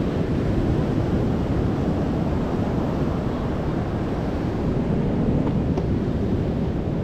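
Steady rush of surf breaking and washing up the beach, with wind buffeting the microphone.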